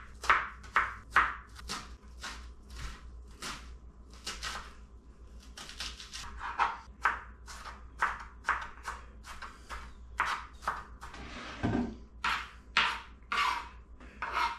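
Small kitchen knife dicing an onion on a cutting board: quick, sharp chopping strokes about two to three a second, thinning out around five seconds in, with one duller thump near the end.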